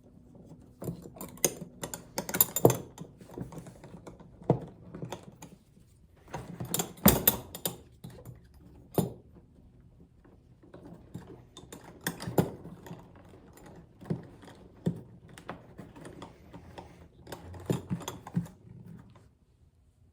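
A leather briefcase being handled: irregular clicks, knocks and rustles in clusters with short pauses, as its straps and metal hardware are worked.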